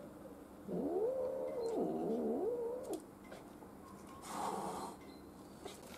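Domestic cat giving a long, wavering yowl of about two seconds that dips lower in pitch partway through, a defensive warning at a dog close in front of it. A shorter, noisier sound follows about a second later.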